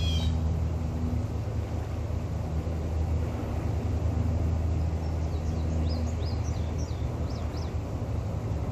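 Towboat diesel engines droning low and steady across the water, with a few short high chirps in the second half.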